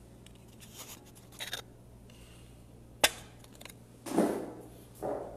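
Handling noise from a phone camera being adjusted on its mount: faint scrapes and light clicks, with one sharp click about three seconds in and two short rubbing sounds near the end.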